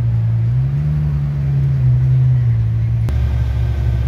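Ferrari engine running at low revs, its pitch rising and falling gently as the car moves slowly off. About three seconds in the sound cuts to a Ferrari 488 Pista's twin-turbo V8 idling with a steady, deeper drone.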